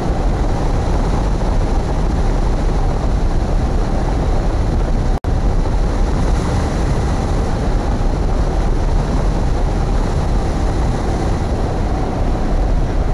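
Heavy wind noise from the airflow over a hang glider in flight, buffeting the wing-mounted camera's microphone with a steady low rumble and hiss. The sound cuts out for an instant about five seconds in.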